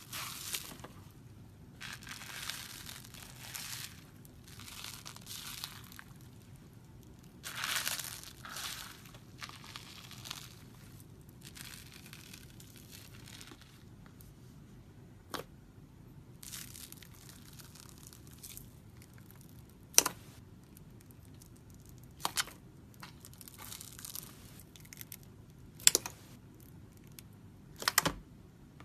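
Bubbly slime being stretched and squished by hand, with crackly, tearing sounds in the first half, then a few sharp pops as air pockets burst.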